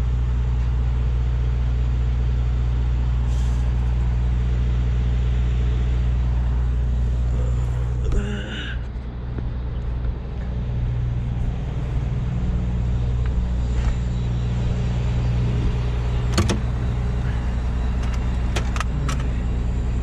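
Heavy diesel truck engine idling steadily, the tow truck's engine running beside a truck that cannot start. A short hiss about eight seconds in, and a few sharp metallic knocks near the end.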